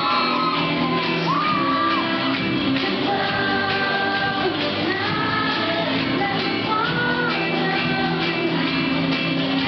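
Live pop-rock band playing: a female lead vocal singing held notes and glides over electric guitar, keyboard and drums.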